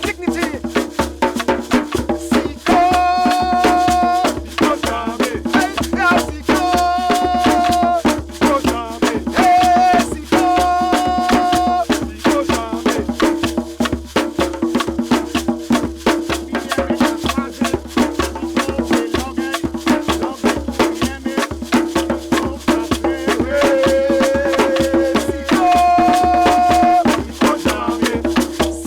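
Music with fast, busy rattling percussion like shakers over a steady sustained low note, with long held higher notes coming in several times.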